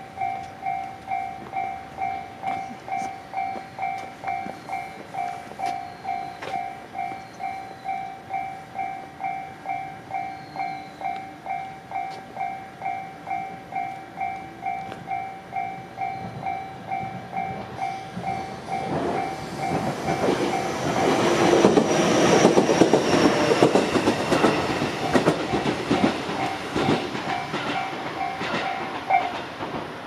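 Japanese level-crossing warning bell ringing, a steady electronic ding about twice a second. About two-thirds of the way through, an electric train of the JR Central Minobu Line passes over the crossing, loudest a few seconds after it arrives. The bell stops just before the end as the train clears.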